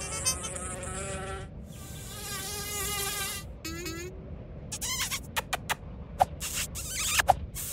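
Cartoon fly sound effects: a pitched, wavering insect buzz, then a quick string of short buzzy chirps in the last few seconds.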